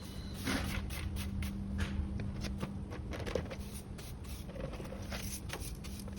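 Scattered light knocks, clicks and scrapes of handling over a steady low hum.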